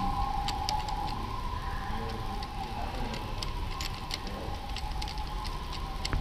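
Light metallic clicks and taps of hand tools and small parts as a brake master cylinder is fitted to a motorcycle handlebar. A steady two-note hum fades out over the first couple of seconds.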